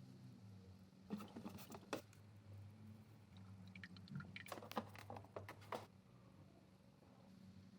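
Near silence over a faint low hum, with two short clusters of faint clicks and rattles, about a second in and again around the middle.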